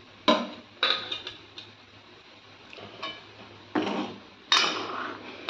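A metal ladle knocking and scraping against the side of a metal pot of thick curry as it is stirred: a run of about six sharp metallic clanks with a short ring, the loudest about a third of a second in and near the end.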